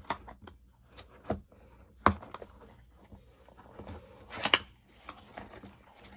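A small product box being opened by hand: scattered sharp clicks and snaps of the packaging, the loudest about two seconds in and a quick pair about four and a half seconds in.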